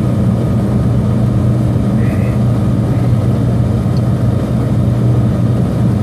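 ProTemp Sun-Stream PT-70-SS radiant kerosene heater lit and running: a steady rush from its fan motor and burner over a constant low hum.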